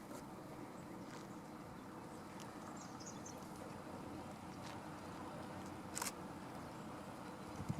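Faint outdoor ambience: a steady low rumble with a few faint high chirps about three seconds in and a single sharp click about six seconds in.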